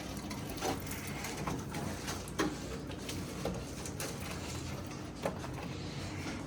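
Steady background noise with a few scattered light clicks and knocks, like handling noise on metal or tools.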